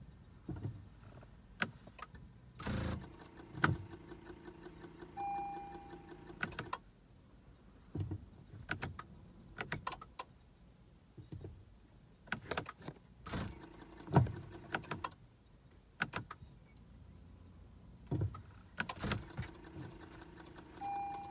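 Clicks of the push-button start and shift controls, with short electronic beeps and held warning chimes from the dashboard of a 2015 Acura TLX. No starter cranking or engine running follows: the car won't crank.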